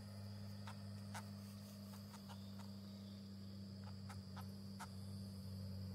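Faint, steady, high-pitched trill of night insects, with a steady low hum beneath and a few scattered faint clicks.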